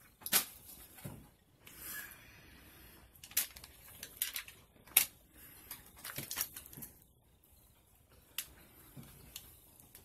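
King crab leg shells being cracked and broken apart by hand: scattered sharp snaps and crunches at irregular intervals, the loudest just after the start and about five seconds in.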